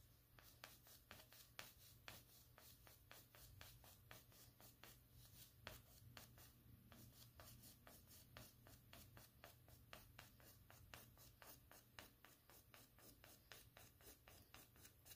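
Faint scratching of an oil pastel stroked quickly back and forth across paper, about four short strokes a second.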